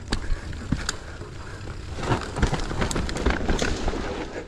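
Mountain bike rolling down a rough trail: tyres on dirt and rock with many short clicks and rattles from the bike. It gets louder about two seconds in.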